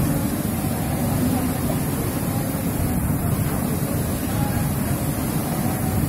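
Steady low rushing drone of garment-pressing machinery: steam ironing tables with their blowers running on a factory floor.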